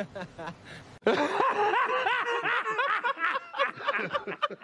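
A man laughing, starting about a second in and going on in short, quick repeated bursts.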